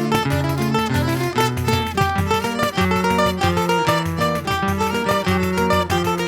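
Plucked-string choro ensemble playing a fast melody: a guitar with a higher, mandolin-like lead, over a moving bass line.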